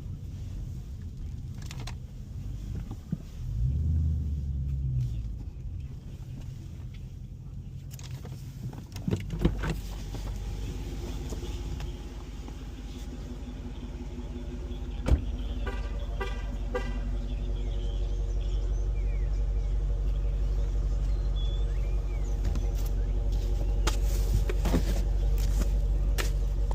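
Car noise from inside the cabin: some low thumps and a knock, then from about nine seconds in a steady engine and road hum that grows gradually louder as the car gets under way.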